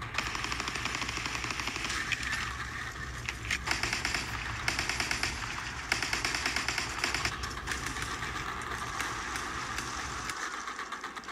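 Battle sound effects of sustained rapid machine-gun fire, many shots in quick succession, over a low steady rumble that cuts off about ten seconds in.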